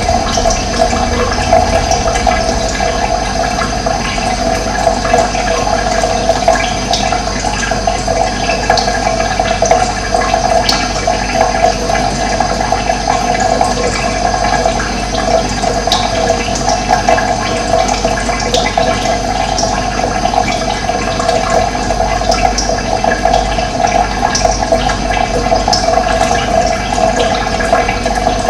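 Steady sound of running water, continuous and unchanging.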